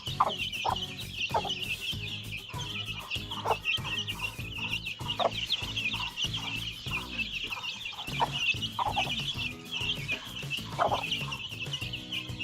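Desi hen clucking in short single calls over the steady, crowded peeping of her chicks.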